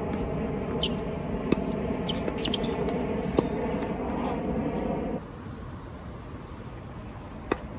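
Tennis balls struck by rackets in a doubles rally: sharp pops about two seconds apart, with fainter clicks between, then one more hit near the end. Under them runs a steady droning hum that cuts off suddenly about five seconds in.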